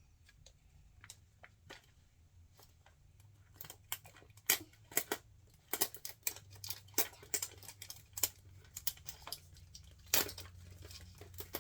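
Toy packaging being handled and opened: a quiet start, then from a few seconds in a fast, irregular run of sharp clicks and crackles.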